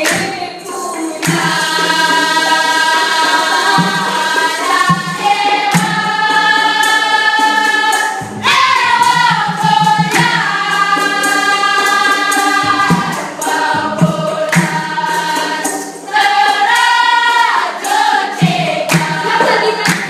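A group of voices singing a melody together in long held notes, over a steady percussive beat.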